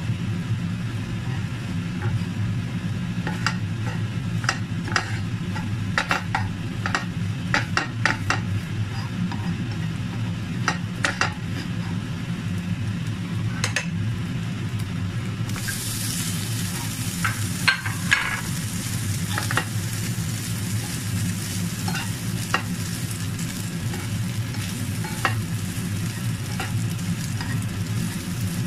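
A black slotted spatula clicks and scrapes against a nonstick frying pan as crumbled salted egg yolk is stirred. About halfway through, a sudden, steady sizzle starts as prawns go into the hot pan, and the stirring clicks continue over it.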